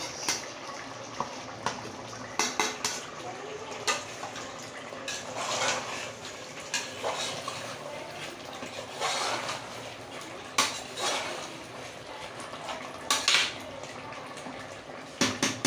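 Slotted ladle stirring chicken masala in an aluminium pressure cooker, scraping and knocking against the pot at irregular intervals.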